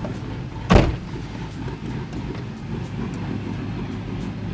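Chevy Gen 3 5.3-litre V8 with a Truck Norris camshaft idling steadily with a low rumble, as the pickup is about to be backed up on the dyno. A single loud thump about three-quarters of a second in.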